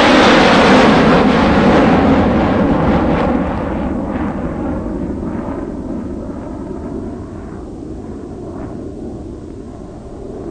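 JCB 3DX backhoe loader's diesel engine working hard as the front bucket pushes into a sand pile and lifts its load. The engine is loudest for the first three seconds, then eases off and fades steadily.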